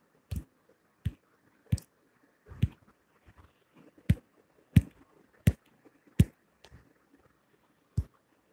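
A series of about nine sharp clicks or taps, irregularly spaced roughly every three-quarters of a second, with faint hiss between them.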